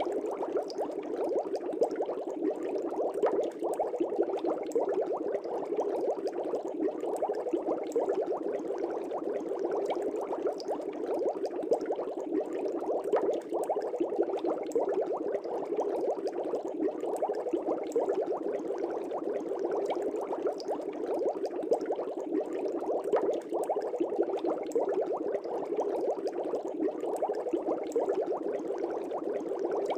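Air bubbles streaming up through an aquarium and breaking at the surface: a dense, even bubbling of many small pops close together, with no pauses.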